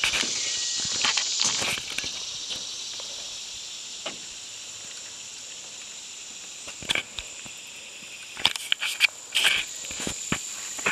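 Steady high-pitched drone of insects, louder in the first couple of seconds, with a few short clicks and rustles later on.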